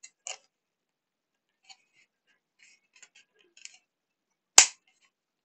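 Faint handling ticks of hard plastic parts, then one loud, sharp click about four and a half seconds in from the action figure's rigid-plastic wing ratchet joint as the wing is worked into place.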